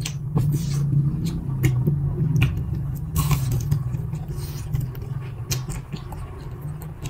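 Close-miked eating sounds: noodles slurped from a soup bowl at the start, then bites into fried snacks and chewing, with many small wet mouth clicks and smacks and a longer slurp or suck about three seconds in. A steady low hum runs underneath.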